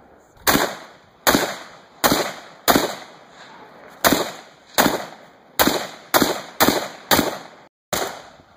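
Rapid semi-automatic fire from an AK-47-type rifle: about eleven sharp shots, each half a second to a second apart, each with a short echoing tail.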